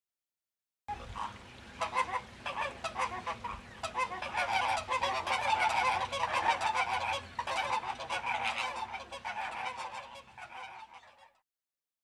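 A flock of flamingos calling, with many short calls overlapping in a dense chorus. It starts abruptly about a second in, is loudest in the middle and fades out shortly before the end.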